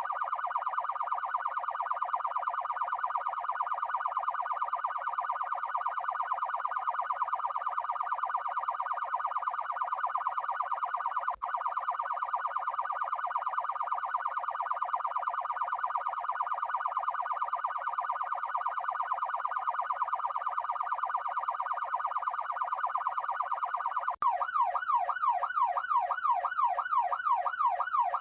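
Electronic police car siren sounding a rapid, high-pitched warble, with a brief cut about eleven seconds in. About 24 seconds in it switches to a slower yelp, sweeping up and down about three to four times a second.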